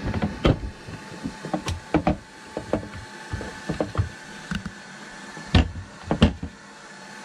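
Scattered knocks and clatter of a wooden cabinet access panel being pried off and handled, with two louder knocks a little past the middle.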